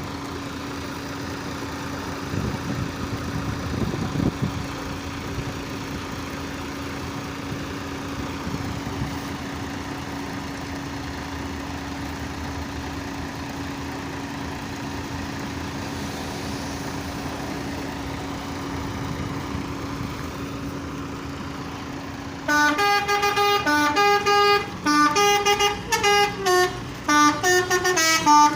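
Vehicle and engine noise with a steady low hum. Near the end a bus's telolet horn, a set of musical air horns, loudly plays a quick melody of changing notes with short breaks between phrases.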